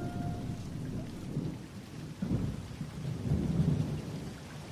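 Wind buffeting a phone's microphone: an uneven low rumble that swells and falls, with no clear tone in it.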